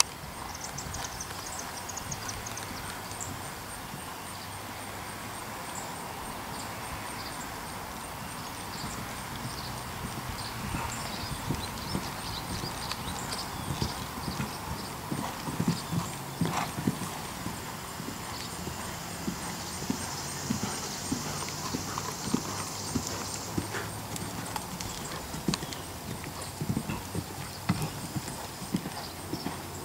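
Horse's hoofbeats thudding on sand footing as it canters and jumps a course of fences, loudest as it passes close about halfway through.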